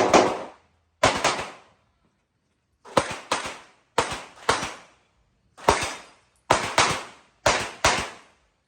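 Open-division competition pistol fired rapidly, around twenty shots in quick pairs and threes with short pauses between groups, as the shooter engages targets in turn.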